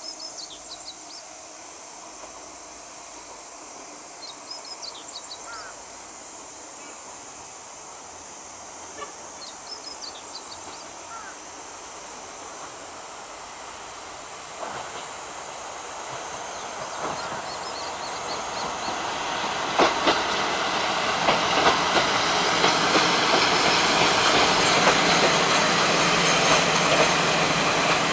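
JR Kyushu Kiha 147 diesel railcar approaching and pulling into the station. Its engine and wheel noise grow steadily louder from about halfway through, then hold loud with scattered clicks from the wheels on the rails, over a few high bird chirps early on.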